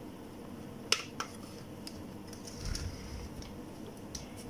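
A few faint clicks, two close together about a second in, and a soft low rumble near three seconds: light handling on a workbench.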